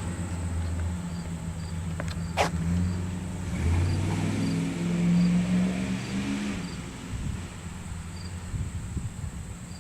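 1999 Dodge Ram's 5.9 L 360 V8 through a Thrush Welded muffler, rumbling low as the truck drives off. The engine note climbs under throttle for a few seconds from about three and a half seconds in, then drops and fades away. Crickets chirp steadily throughout.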